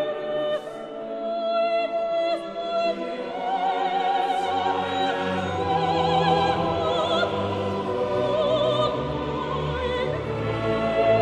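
Classical music: operatic singing with wide vibrato over orchestral accompaniment, a low bass line coming in about four seconds in.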